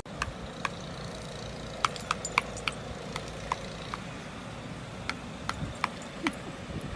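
A series of sharp, irregularly spaced clicks or taps, about fifteen in all, over a steady low hum.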